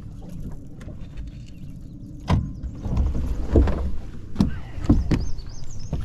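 A low steady rumble of wind on the microphone, then from about two seconds in a handful of sharp knocks and thumps of someone moving about on a boat deck.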